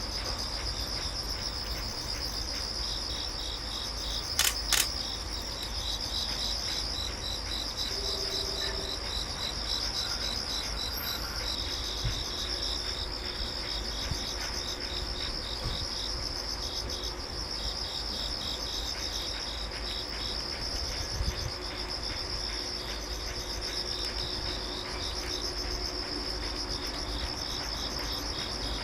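Insects chirring steadily in a fast pulsing trill, with two sharp clicks about four and a half seconds in.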